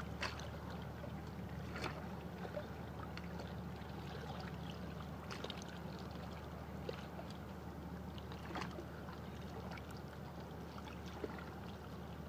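Calm harbour water lapping against shore rocks, with a few small sharp splashes scattered through it over a steady low hum.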